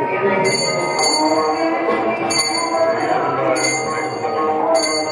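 Temple hand bell rung in short bursts about every second and a half, over continuing music with held notes.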